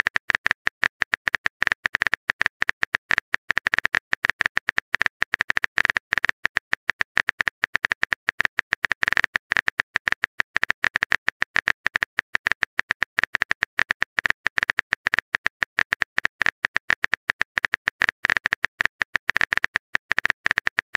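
Rapid keyboard typing click sound effect, a dense uneven stream of short taps many times a second, as text is typed letter by letter into a chat message.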